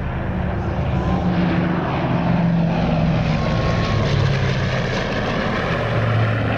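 Lockheed Constellation's four radial piston engines droning in a low fly-past. The drone grows louder over the first couple of seconds, and its pitch sinks as the aircraft goes by.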